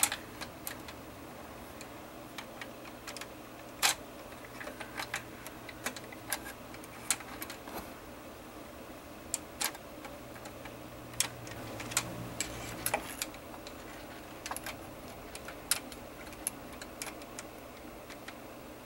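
Irregular sharp metal clicks and taps from pliers knocking against the 48RE transmission's valve body and linkage while reaching for a rod, the loudest about four seconds in, over a faint low hum.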